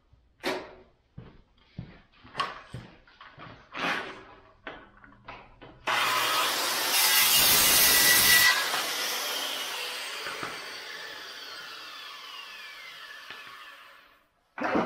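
Makita corded circular saw starting up and cutting through 2-inch PVC pipe about six seconds in, loudest for a second or two during the cut, then the blade spinning down with a falling whine over several seconds. Before it, a few scattered knocks and clicks.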